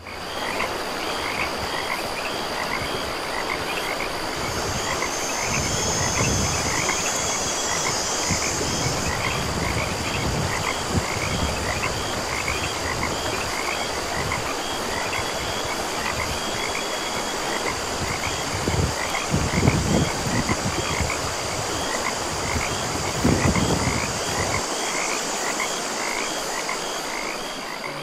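A chorus of animal calls: short chirping calls repeating about two to three times a second over a steady high-pitched hum. Now and then there are gusts of low rumble, and these stop near the end.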